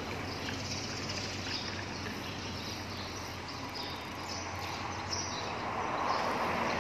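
Steady outdoor background noise with a low hum and faint, scattered high chirps.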